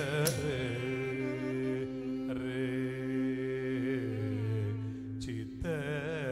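Live Carnatic music: an ornamented, sliding vocal melody with violin over a steady drone, with a few sharp percussion strokes near the start and around five seconds in.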